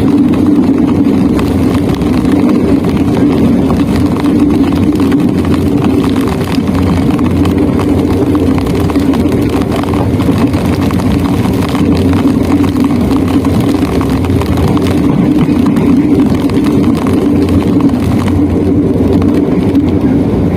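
Train running at speed, heard from inside a passenger carriage as a steady low rumble.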